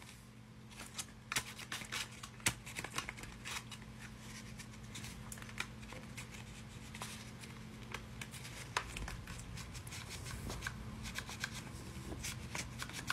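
Paper dragon puppet being worked by hand: faint, irregular crisp clicks and rustles of folded paper as its parts are moved to make the eye blink. A low steady hum underneath.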